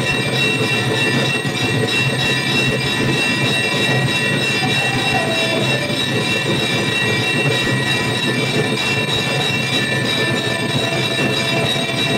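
Hanging brass temple bells rung rapidly and without pause by hand, making a loud, unbroken clanging with steady ringing tones over it.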